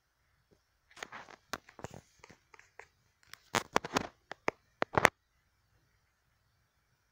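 Irregular rustling and sharp clicks, like something being handled, from about a second in until about five seconds in, loudest in a cluster of clicks near the end.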